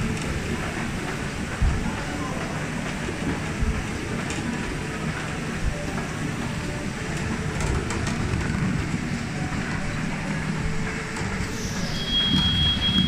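Apple sorting line running: the steady clatter and hum of its conveyor belts and brush rollers, with occasional knocks. Near the end a high whine slides down in pitch and then holds steady.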